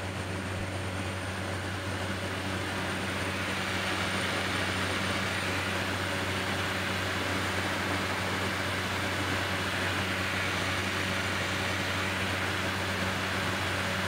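Steady drone of a small turboprop plane in cruise, heard inside the cabin: a constant low engine and propeller hum under a broad rush of airflow.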